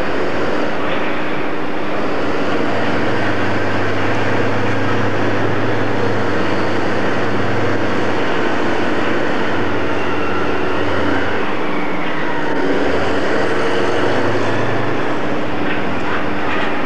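Class 56 diesel locomotive's engine running steadily as it hauls a train of coal hopper wagons slowly past, a constant drone with shifting low engine notes.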